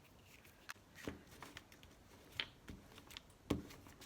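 Faint handling of a glue stick and paper: a few light clicks and taps spread through, the sharpest about three and a half seconds in.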